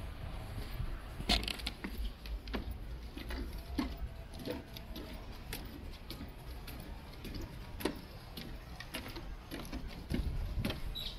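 Footsteps on the wooden plank deck of a footbridge: sharp knocks at a steady walking pace, about three every two seconds, over a low steady rumble.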